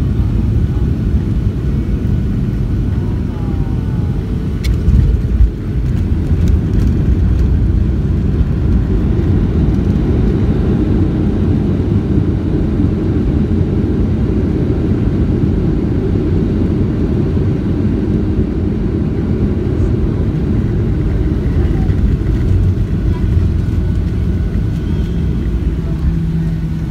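Jet airliner rolling fast along the runway, heard from inside the cabin: a loud, steady low rumble of engines and wheels.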